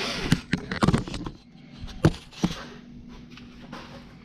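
A string of light knocks, taps and clatter from handling a drill and the workpiece, with a brief noisy stretch right at the start.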